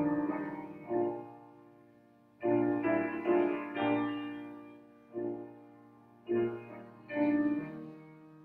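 Piano playing a slow, quiet piece in chords, each chord struck and left to fade before the next.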